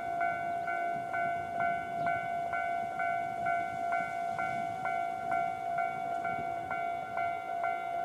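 Japanese railway level-crossing alarm giving its standard electronic 'kan-kan' warning bell: a ringing tone struck over and over at about two strikes a second, steady throughout.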